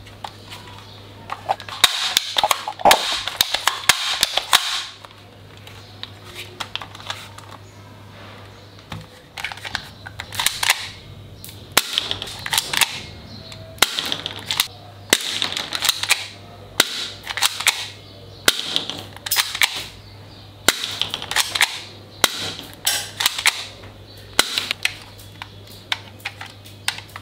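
Plastic toy guns being handled: clusters of sharp plastic clicks and clatters, densest in a run a couple of seconds in, then in short groups every second or two.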